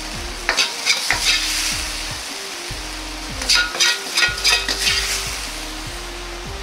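Metal wok ladle scraping and clinking against the wok in two quick runs of strokes, gathering up the sauce, over the steady sizzle of the hot wok.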